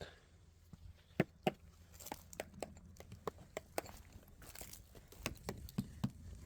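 Irregular series of sharp taps on house siding boards, two louder knocks a little over a second in, then a dozen or so lighter taps. An inspector is sounding the siding for damage.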